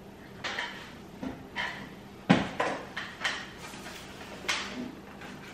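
A series of knocks, bumps and short scrapes as a large box is lifted and pushed onto a high kitchen cabinet shelf, the loudest a sharp knock a little over two seconds in.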